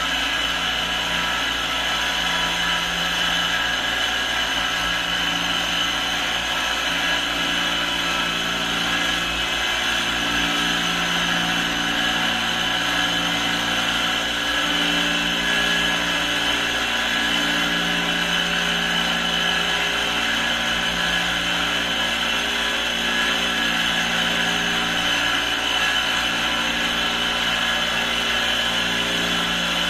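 Electric motor of an electrospinning disc collector spinning the shaft and disc at a little over 3,000 rpm, a steady whir. Under it, a low hum swells and fades every second or two.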